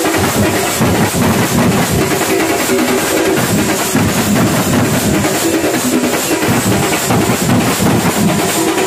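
A drum troupe beating rope-laced stick drums together in a fast, continuous rhythm, with hand cymbals clashing along, loud throughout.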